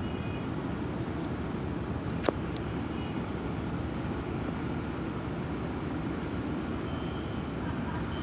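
Steady low rumble of a ship's diesel engines running during a docking manoeuvre, with a single sharp click about two seconds in.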